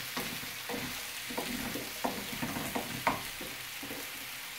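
Chopped onions, celery and carrots sizzling in a frying pan on a gas hob while a spatula stirs them, scraping and knocking against the pan every half second or so.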